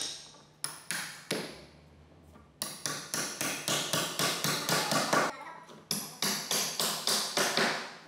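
Hammer blows: two single strikes in the first second and a half, then two runs of quick repeated strikes, about six a second, with a short break between them.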